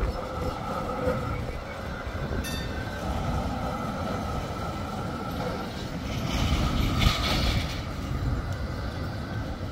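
A Geneva tram running along its track: a steady rumble with a steady whine, a short click about two and a half seconds in, and a louder hiss that swells and fades about two-thirds of the way through.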